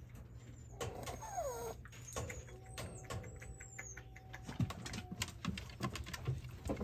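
Shiba Inu puppy making small noises as it sleeps: a short falling whine about a second in, faint high squeaks, and light clicks and patters.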